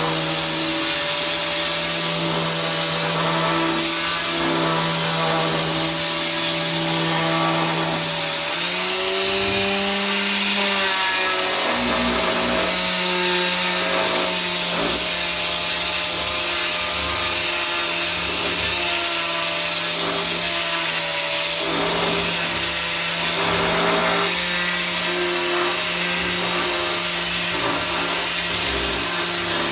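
Electric power sander running steadily on a wooden sign, its motor hum shifting in pitch as the load changes, rising briefly about nine seconds in.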